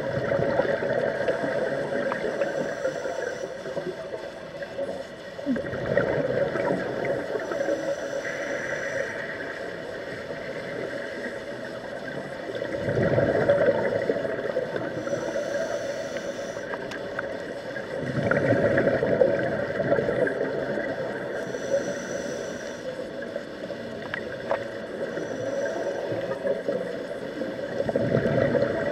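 Scuba diver breathing through a regulator underwater: a rush of exhaled bubbles about every six seconds, with a steady hiss between breaths.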